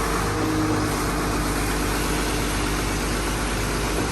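Heavy truck-mounted engines of a concrete pump and a transit mixer running steadily while concrete is transferred and pumped: a constant drone with a steady hum.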